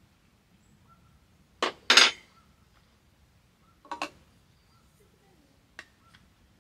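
Stainless steel tumbler and other drinkware handled on a folding table, giving a few sharp clinks and knocks: a loud pair about two seconds in, another pair about four seconds in, and a light tick near the end.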